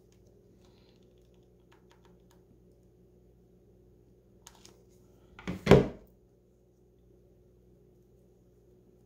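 A single loud thump of something knocked or set down, a little past halfway through, with a few faint ticks before it; otherwise a nearly silent room with a faint steady low hum.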